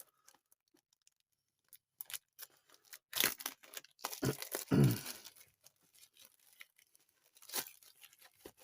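A trading card box being torn open by hand: a series of sharp rips and crackles of cardboard and wrapping, loudest a little past the middle, as the stubborn box finally gives.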